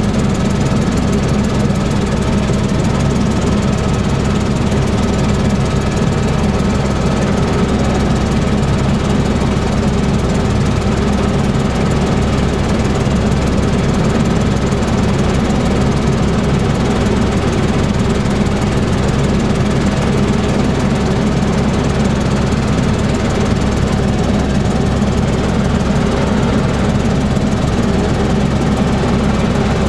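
Bell helicopter in flight: the steady drone of its engine and main rotor, with a thin steady whine above it.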